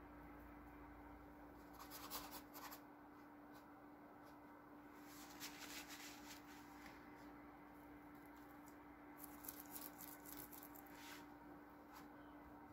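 Faint scratching of a paintbrush working oil paint onto canvas, in three short clusters: about two seconds in, around six seconds in and around ten seconds in. A steady low hum runs underneath.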